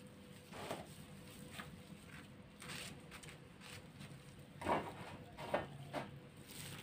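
Quiet handling sounds of butter cream being scooped from a plastic bowl and spread thinly onto bread slices on a metal baking tray, with a couple of slightly louder soft scrapes a little after the midpoint. A faint steady hum sits underneath.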